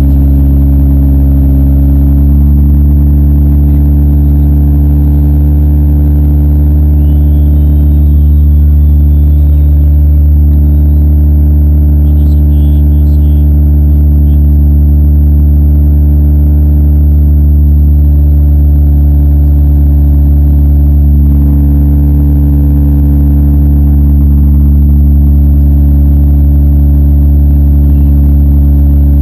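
Demolition derby car's engine running steadily, loud and close, with an even, unchanging pitch.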